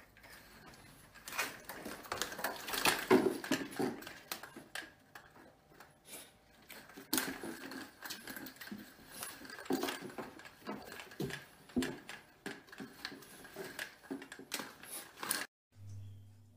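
Wooden window-blind slats clattering and knocking irregularly as a cat climbs among them. Near the end this gives way to a low steady hum.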